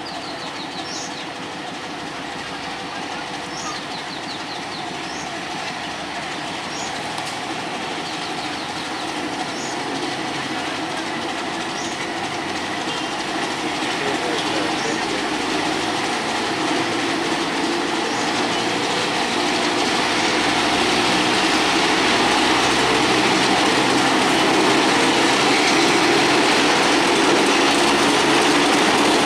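Bangladesh Railway broad-gauge diesel locomotive hauling passenger coaches slowly into the station, its engine and wheels on the rails growing steadily louder as it comes up alongside. A short high chirp repeats about once a second through the first dozen seconds.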